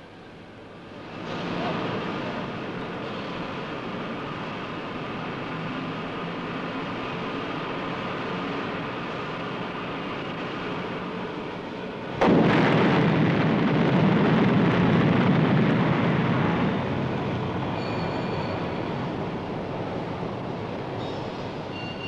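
Steady industrial roar, then about twelve seconds in a sudden heavy crash and rumble that dies away slowly over several seconds: the scrap charge dropping from the charging bucket into the open, glowing electric arc furnace.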